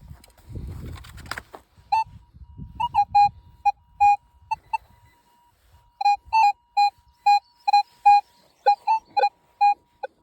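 Metal detector beeping over the hole: a string of short, high-pitched beeps at irregular spacing over a faint steady tone, signalling that the metal target is still in the ground. Low rustling and scraping of soil comes just before the beeps start.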